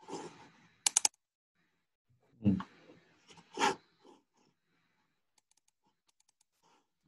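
Clicks and taps at a computer keyboard and mouse: three quick sharp clicks about a second in, two louder, duller knocks a little later, then light scattered key taps near the end.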